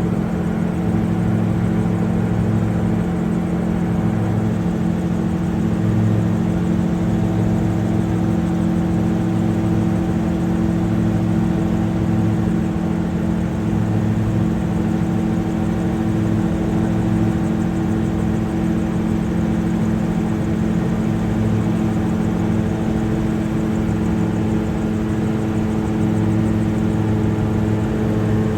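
Quadcopter drone's electric motors and propellers whirring steadily in flight, a constant multi-pitched hum.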